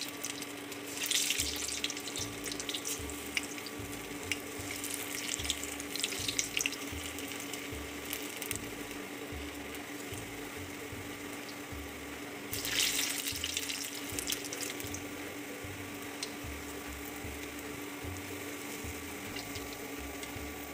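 Balls of urad dal batter deep-frying in hot oil, with a steady sizzle and fine crackling. It swells louder about a second in, around six seconds and around thirteen seconds as more vadas go into the pan. A steady faint hum sits underneath.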